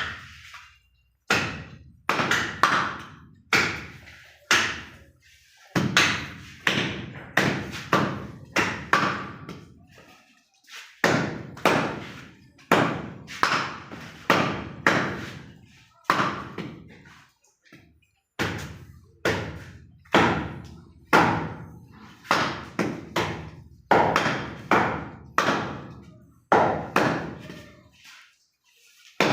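A butcher's cleaver chopping through goat leg meat and bone: a long run of heavy thunks, about one to two a second, with a few short pauses.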